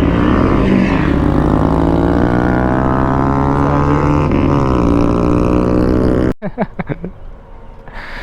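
Motorcycle engine running with wind rumble on the rider's microphone, its pitch dipping and climbing again twice as the throttle and gears change. The sound cuts off suddenly about six seconds in, leaving only faint low sounds.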